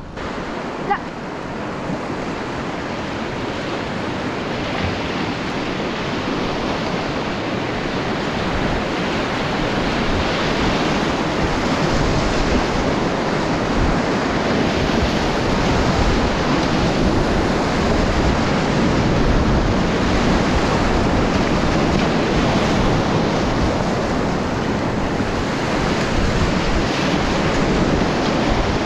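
Rushing whitewater of a river rapid at about 600 cfs, heard from a kayak running it. It grows louder over the first ten seconds or so as the boat moves from flat water into the rapid, then holds steady.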